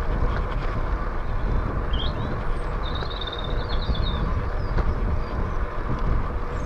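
Steady rumbling wind buffeting the microphone and tyre noise of a bicycle rolling along tarmac, with a short bird chirp and trill about two to three and a half seconds in.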